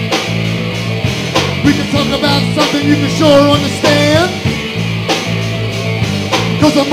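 Live rock band playing an instrumental jam on electric guitars and drums: a lead guitar bends notes up and down over steady low rhythm notes and a driving drum beat.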